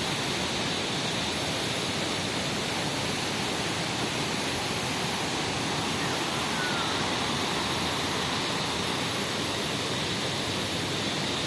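Steady rushing of a waterfall, an even unbroken roar of falling water.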